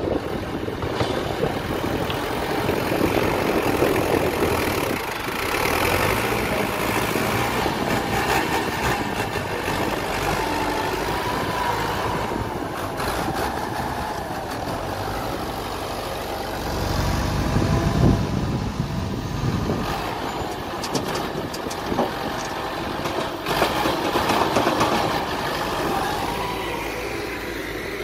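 Fiat 8066 tractor's diesel engine running under load as it works a front loader, its pitch rising and falling as the bucket is lifted and tipped. A few sharp knocks come through.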